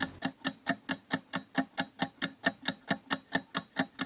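Clock-ticking sound effect of a quiz countdown timer, about four to five even ticks a second, counting down the time to answer.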